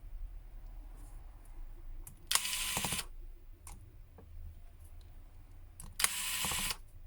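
Small screwdriver backing out tiny phone screws: two short buzzing, ticking runs of about two-thirds of a second each, about three and a half seconds apart.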